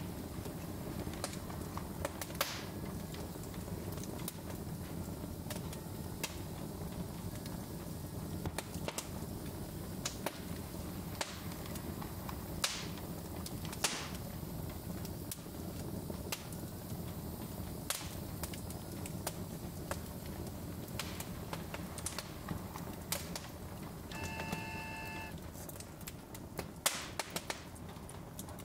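Wood fire burning in a fireplace: a steady low rumble with irregular sharp crackles and pops. A short toot with several stacked pitches sounds near the end.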